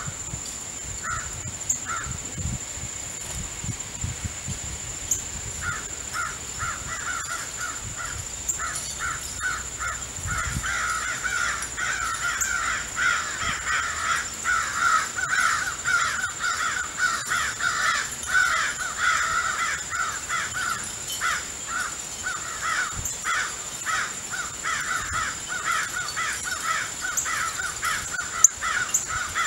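Crows cawing over and over: a few calls at first, then a dense run of overlapping caws from about six seconds in.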